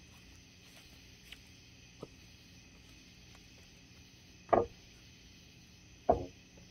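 Two loud thuds about a second and a half apart, each with a brief ringing tail, over a steady chirring of night insects; two faint clicks come earlier.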